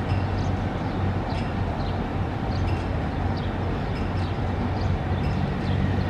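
Busy city street traffic with trams and cars going by: a steady rumble with a low hum, and faint short high chirps scattered through it.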